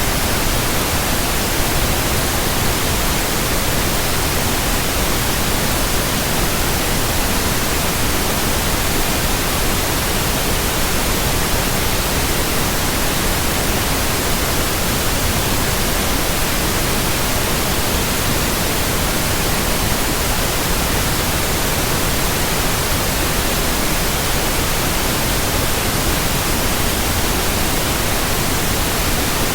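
Steady, unbroken white noise: an even hiss spread across all pitches, with no changes or events.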